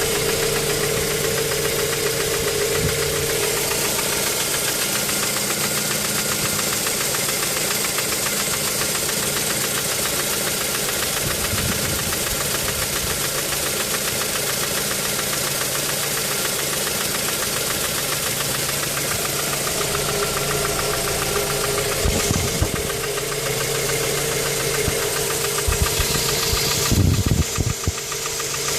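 Mazda 3 engine running with a steady knocking noise that began after the spark plugs were changed; the owner also reports a misfire when stationary. A few louder thumps come in near the end.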